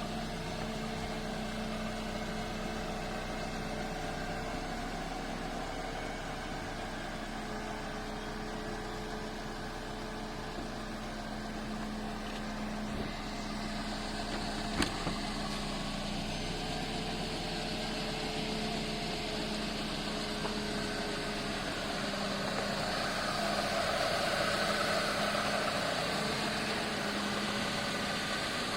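Mercedes-Benz CLK200 Kompressor's supercharged four-cylinder engine idling steadily. A hiss joins about halfway, with a single sharp click just after it.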